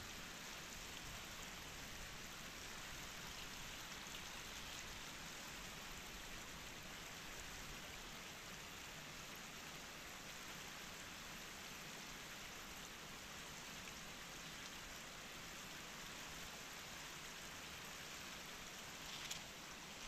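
Shallow river flowing over stones: a steady, faint rush of water, with a few faint clicks near the end.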